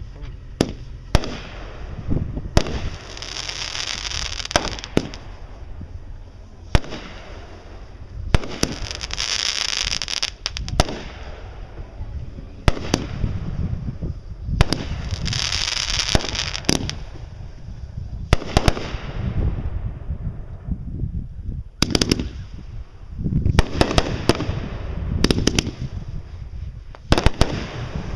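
Fireworks going off in quick succession: many sharp bangs throughout, with three loud hissing bursts of a second or two each, and a dense run of bangs in the last few seconds.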